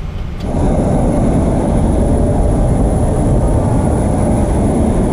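Steady loud rumble inside a Boeing 737 cockpit on the ground after landing in heavy rain. It starts abruptly about half a second in.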